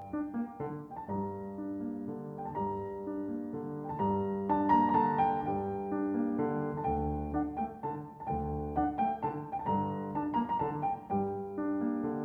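Background piano music, gentle notes played in a steady flowing pattern.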